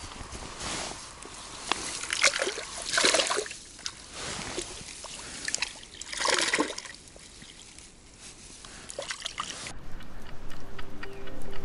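Water splashing and sloshing at the river's edge, in a few separate bursts, the loudest about two to three seconds in and again about six seconds in. Background music starts near the end.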